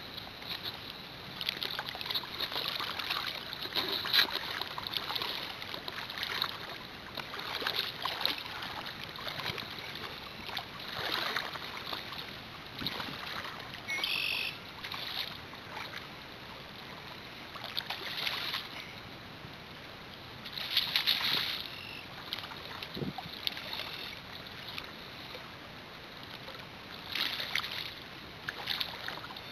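Water sloshing and lapping around a float tube in soft, repeated swells every second or two, with a brief high-pitched sound about fourteen seconds in.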